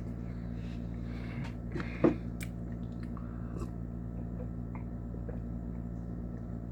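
A person chewing a mouthful of chicken spaghetti, with faint wet mouth sounds and a short sharp click about two seconds in, over a steady low hum.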